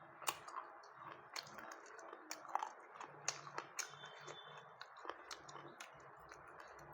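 A person chewing food close to the microphone, with many irregular sharp clicks of the lips and mouth.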